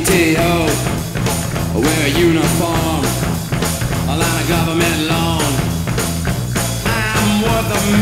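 Rock music with a singing voice over a steady drum beat and bass.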